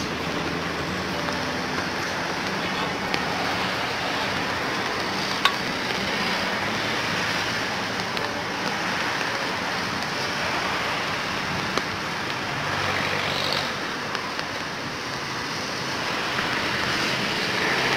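Steady outdoor background rush with a faint low hum underneath, broken by a few faint clicks, the clearest about five and a half seconds in.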